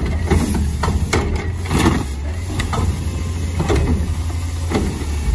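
Front-loading garbage truck's diesel engine running steadily while its automated arm lifts and tips a wheeled trash cart. Knocks and clanks come about once a second over the engine.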